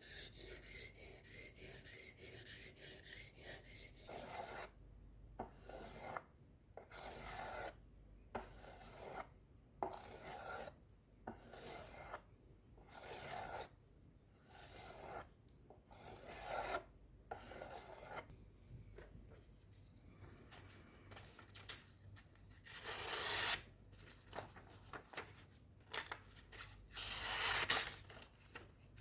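Knife being sharpened, the blade scraping in repeated strokes. The strokes are quick and short at first, then slower at about one a second, then a few spaced strokes with two louder ones near the end.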